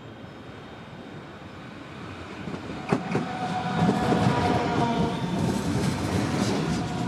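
DB Class 426 electric multiple unit pulling in along the platform and passing close by. Wheel-on-rail rumble grows louder from about two seconds in, with a single sharp clack near the middle. Steady electric whine tones then run over the rumble.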